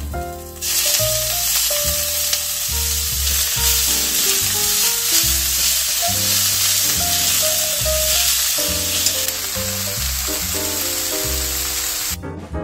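Dried radish greens (siraegi) sizzling in hot perilla oil in a stainless frying pan as they are stir-fried with a spatula. The sizzle starts suddenly about half a second in, when the greens hit the pan, and cuts off abruptly near the end.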